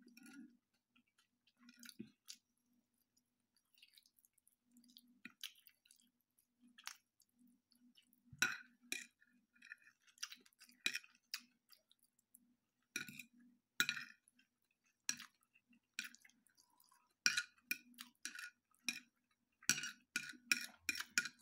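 Close-up chewing and mouth sounds of someone eating slowly, with a fork and knife clicking and scraping on a glazed ceramic plate. The clicks are sparse at first and come thick and fast in the second half.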